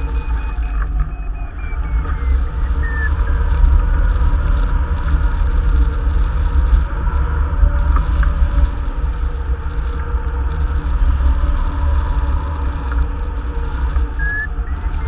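Wind rushing and buffeting over the microphone of a hang glider in flight, with a heavy low rumble. Over it, a variometer's electronic tone glides up and down in pitch and turns into quick beeps near the end, the sign of the glider climbing in a thermal.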